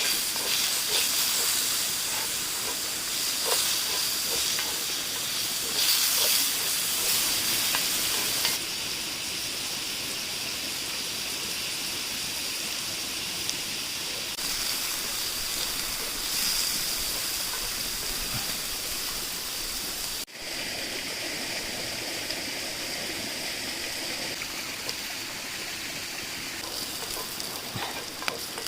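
Food frying in hot oil in a pan, a steady sizzling hiss, broken by a sudden brief drop about two-thirds of the way through.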